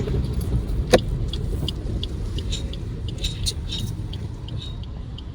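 Car driving, heard from inside the cabin: a steady low road and engine rumble. There is one sharp click about a second in and scattered faint light ticks.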